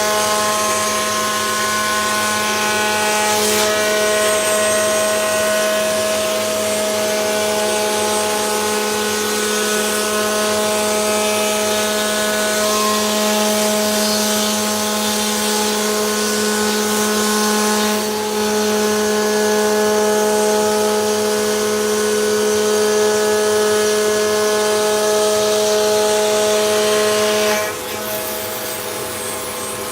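CNC router spindle cutting wood: a steady, loud whine of several held tones over a noisy cutting sound. About 28 seconds in the cutting sound drops away and the level falls, leaving a lighter whirring.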